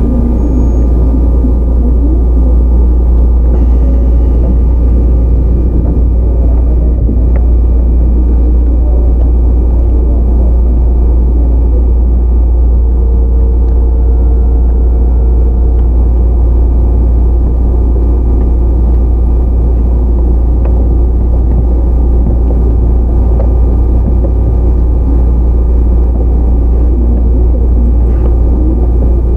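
Onboard running sound of a Sotetsu 9000 series electric commuter train, with Hitachi IGBT VVVF inverter control and right-angle cardan drive, at a steady pace. A continuous heavy rumble comes from the wheels and rails, with faint steady whining tones over it.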